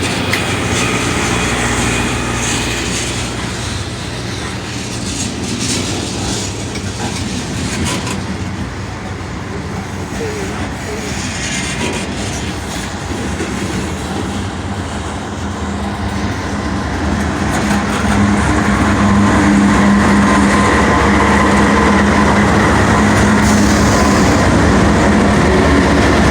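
CSX freight train cars rolling past in reverse as the train is shoved back during switching, wheels clacking over the rail joints. The sound gets louder about two-thirds of the way through, with a steady low hum joining in.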